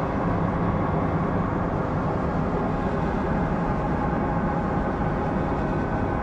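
Dark ambient drone: a steady, dense rumbling wash of noise with faint held tones inside it, unchanging throughout.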